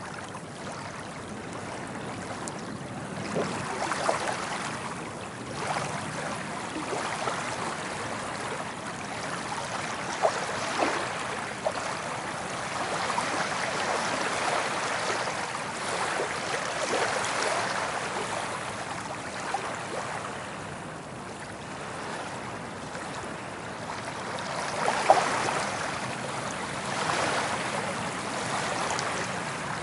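Soft ocean waves rolling in and washing up a beach. The sound swells and eases every few seconds, with small crackles, and the loudest wash comes near the end.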